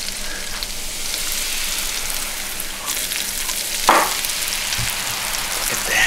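Baking soda and vinegar fizzing on a tray: a steady crackling hiss of bursting foam bubbles, with a single short knock about four seconds in.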